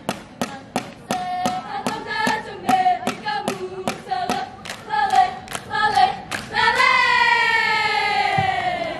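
Saman dance: a group of voices chanting in unison over sharp, evenly spaced hand claps and body slaps, about three a second. About two-thirds of the way through the claps stop and the voices hold one long note that slides down in pitch.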